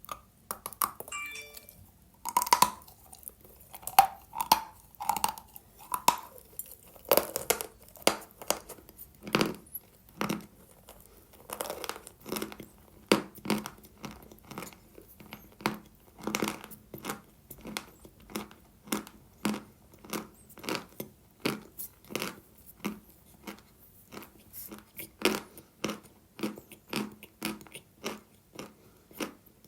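A person biting and chewing lumps of dry Sevryukovo chalk close to the microphone: a run of sharp, dry crunches, about one or two a second.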